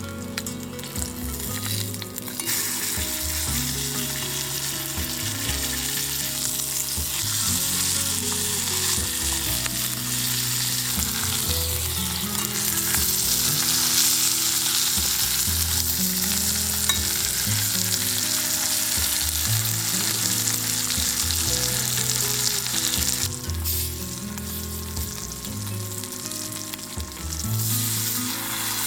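Food frying in a pan with a steady sizzle that swells about two seconds in and eases off around three-quarters of the way through. Soft background music plays underneath.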